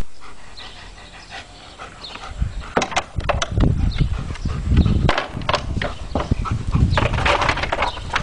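A German Shepherd's paws knocking and clattering on wooden agility obstacles, a seesaw plank and an A-frame, starting about two and a half seconds in and growing busier toward the end, over a low rumble.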